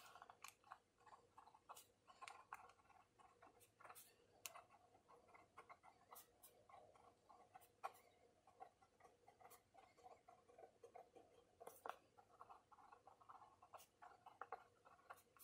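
Fine stainless-steel fountain pen nib writing on paper: a faint, scratchy feedback sound as it moves, with many small ticks as strokes begin and lift.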